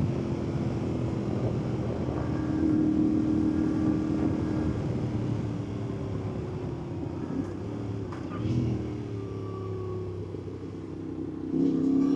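2024 Yamaha Ténéré 700's parallel-twin engine running under way. Its note holds steady, falls and quietens through the middle as the bike slows, then jumps louder and rises near the end as it accelerates.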